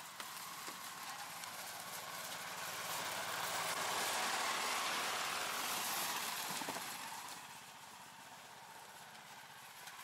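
Engine of a Rybak motorized snow tow running as it pulls loaded plastic sleds over snow past the microphone. It grows louder toward the middle and then fades.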